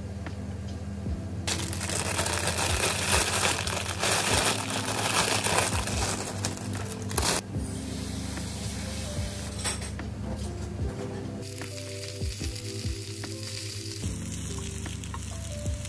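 Asparagus sizzling in a frying pan under light background music. A loud, even hiss runs for about six seconds and cuts off abruptly, then a fainter hiss of the pan comes back near the end.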